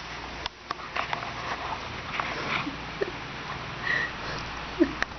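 A sleeping young child snoring, with irregular snuffling breaths through the nose.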